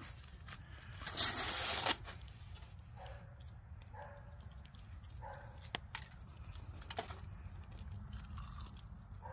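A brief crinkle of aluminium foil about a second in. It is followed by several short, faint whines from a dog and a few light clicks.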